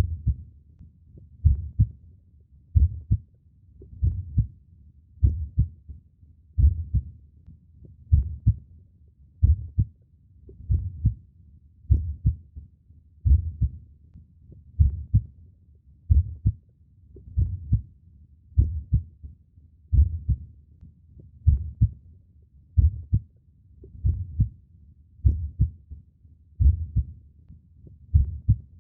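Slow human heartbeat. Each beat is a deep double thump (lub-dub), evenly spaced at about 44 beats a minute.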